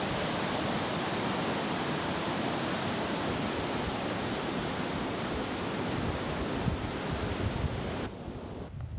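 Steady rush of a large waterfall and river, an even noise with no distinct events, which cuts off abruptly about eight seconds in.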